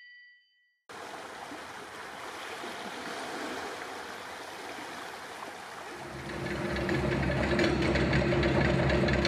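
Steady rushing water, like surf on a shore, starts suddenly about a second in. Some six seconds in, a louder low hum with a rapid flutter swells in over it.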